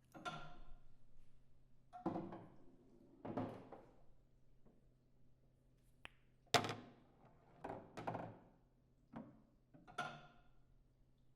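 Billiard balls being played: a series of sharp clicks and knocks at irregular intervals, each ringing briefly, with the loudest strike about six and a half seconds in.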